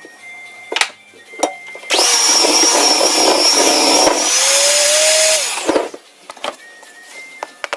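Electric mixer running for about four seconds, starting suddenly about two seconds in and cutting off just before six, with a high steady whine and a pitch that rises near the end. A few short knocks come before and after it.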